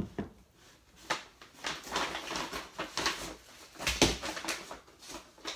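A grocery bag rustling and crinkling as someone rummages through it and pulls out an item, with irregular knocks and a louder thump about four seconds in.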